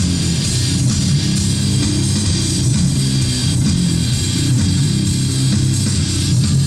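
Rock or heavy metal music with distorted electric guitar and bass guitar, steady and loud.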